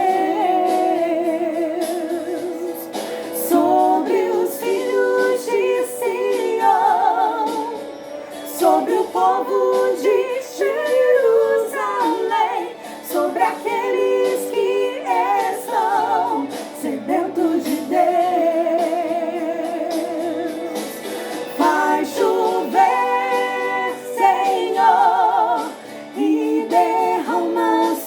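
Women singing a Portuguese gospel song, with long held notes and a wavering vibrato.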